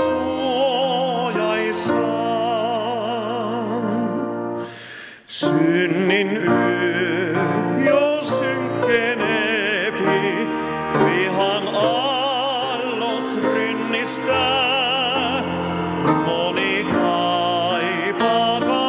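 A man singing a slow song with wide vibrato, accompanied by a grand piano. Voice and piano drop out briefly about five seconds in, then resume.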